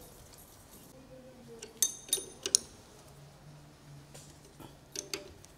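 Metal-on-metal clinks with a short bright ring: a quick cluster of three or four about two seconds in, and two more about five seconds in, as steel tooling is handled on a drill-milling machine.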